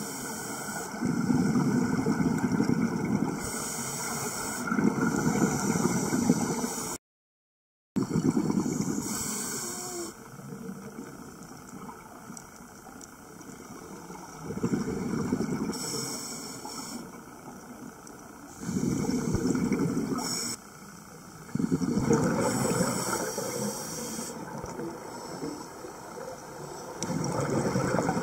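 Scuba divers' exhaled bubbles heard underwater: bursts of gurgling bubbles every few seconds as regulators vent, over a steady hiss. The sound cuts out completely for about a second around a quarter of the way in.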